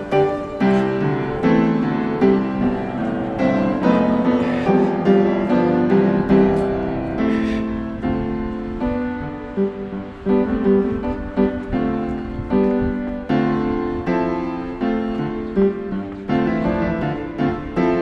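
Instrumental background music led by piano, a steady run of struck notes.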